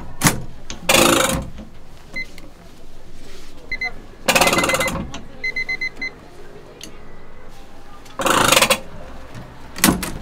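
Hot cast-iron baby castella mold hissing in short bursts, three times, as an oily cloth is wiped over it to grease it. Short electronic beeps sound a few times in the background.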